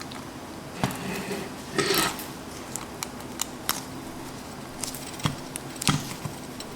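Scattered sharp clicks and a brief scrape of ceiling fan switch-housing parts being handled and fitted back together.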